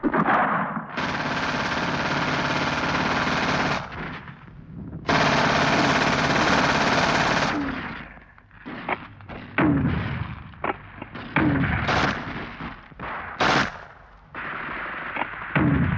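Machine-gun fire in two long bursts of about three seconds each, followed by scattered single shots and blasts.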